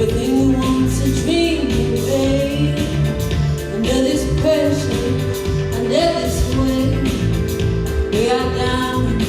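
Live band music with a woman's voice singing wordless, gliding lines over bass and drums, the phrase repeating about every two seconds.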